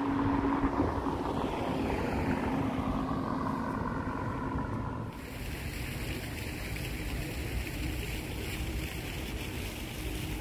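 Outdoor city ambience: a steady engine hum with some faint rising and falling tones, cutting abruptly about halfway through to an even, brighter hiss of wind on the microphone.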